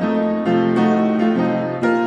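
Background piano music, with new notes and chords struck about every half second.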